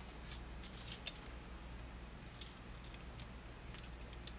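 Scattered light clicks and taps of hands handling a Nikon D300 camera body and fitting a mounting plate to its base, over a faint low hum.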